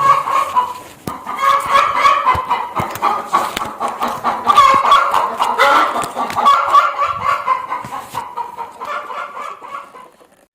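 A flock of chickens clucking and calling over one another, a continuous chatter that fades a little near the end and then cuts off.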